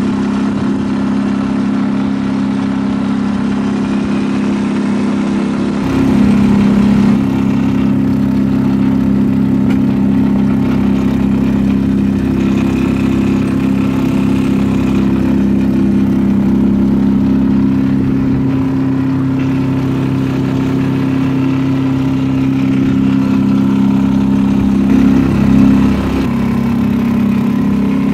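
Small boat's outboard motor running steadily with the boat under way. It gets louder about six seconds in and its note wavers briefly near the end.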